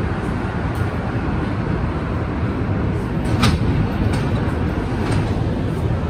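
Montreal Metro rubber-tyred train running along a station platform, heard from inside the car: a steady rumble and running noise, with one brief high-pitched squeak about three and a half seconds in.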